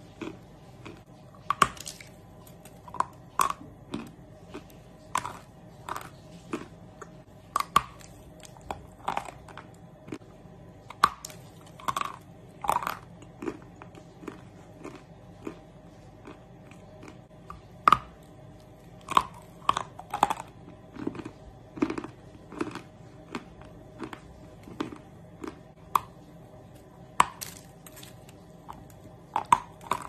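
Biting and chewing a dry chunk of edible chalk: sharp, irregular crunches, about one or two a second, with quieter grinding chews between them.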